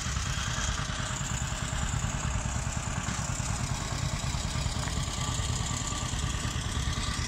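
An engine idling steadily, with a low, rapid pulse.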